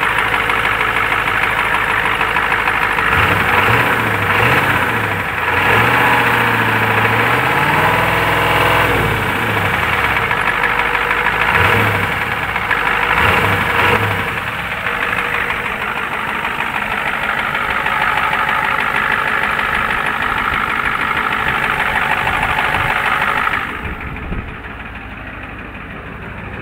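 Ford 7.3 L IDI turbo-diesel V8 running with a pronounced tick or knock. It is revved several times in the first half, then settles back toward idle, and runs quieter near the end. The owner suspects a lifter or a rod knock and rules out a fuel knock, because it also does it when decelerating with the key off; it sounds worse the warmer the engine gets.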